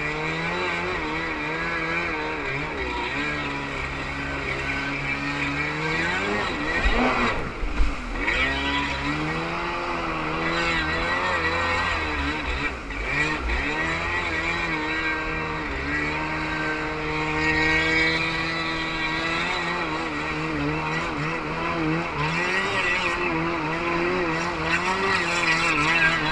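Kawasaki JS550 stand-up jet ski's two-stroke engine running at speed, revving up and down again and again. Its pitch drops away briefly about seven seconds in and again about twelve seconds in, then climbs back.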